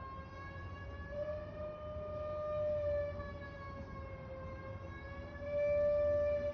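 A sustained, siren-like wailing tone whose pitch wavers gently up and down, over a low background rumble. It swells louder near the end.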